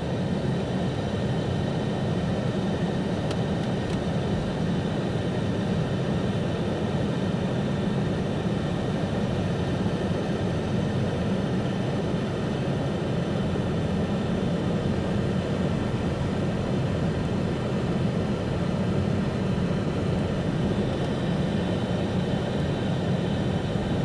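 Steady engine and road noise of a moving car, heard from inside the vehicle, with no change in speed or pitch.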